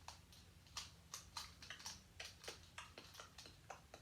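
Plastic Rubik's cube being turned by hand: faint, quick, irregular clicks of the layers snapping round, about three or four a second.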